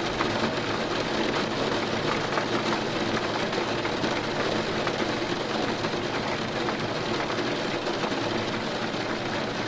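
Steady rain falling: an even hiss with faint scattered patter of drops.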